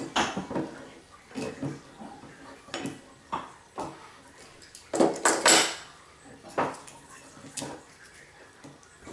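Wine glasses and a wine bottle handled on a table: a series of knocks and clinks, the loudest cluster about five seconds in.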